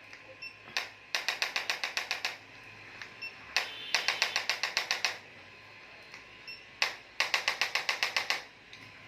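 Electric chiropractic impulse adjusting gun firing three bursts of rapid sharp pulses, about ten a second for a little over a second each, with a single click just before each burst.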